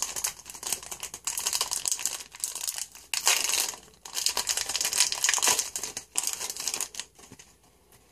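Wrapper of a football trading-card pack crinkling and tearing as it is opened and handled, in irregular crackly bursts that die away about a second before the end.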